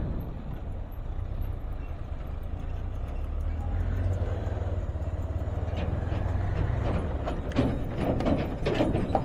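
Motorcycle engine running steadily while riding, a low drone with road and wind noise over it; a few short sharp knocks near the end.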